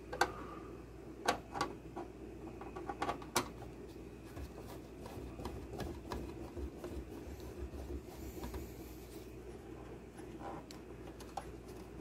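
Screwdriver working the screws out of the metal top of an over-the-range microwave: a few sharp clicks of metal on metal in the first few seconds, then quieter scraping and handling.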